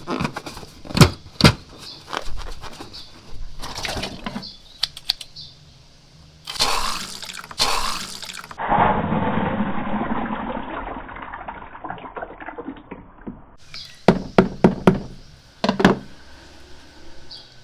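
Wet, sticky slime squelching and clicking as it is handled, with two hissing bursts near the middle. After them comes a few seconds of steady watery gushing, like a toilet flush or pouring liquid.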